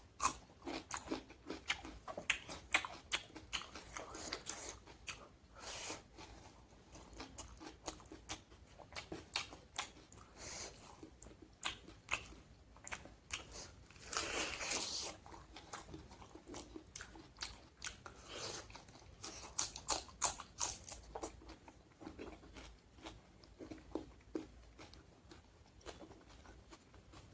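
A person chewing and biting food close to the microphone, mukbang-style, on pork curry with onion and salad: wet chewing with frequent short crisp clicks and crunches, and a longer noisy sound about fourteen seconds in.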